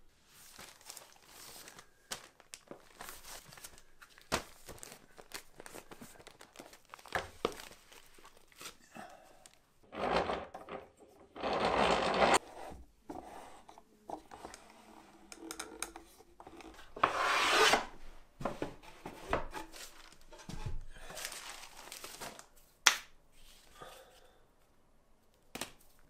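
Wood rubbing, scraping and knocking as a piece of soaked tree bark and plywood press boards are handled, with two longer, louder scraping passes partway through and scattered sharp knocks. The bark is being set flat between the boards of a screw press.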